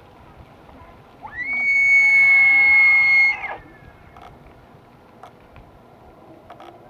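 Bull elk bugling during the rut: one call that glides up into a high, steady whistle, held for about two seconds, then drops away.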